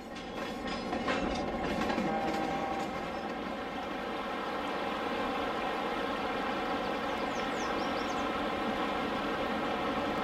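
HO-scale model freight train running on the layout: a steady rolling rumble with wheel clicks and a drone under it, swelling over the first two seconds and then holding level. A few faint high squeals about seven seconds in.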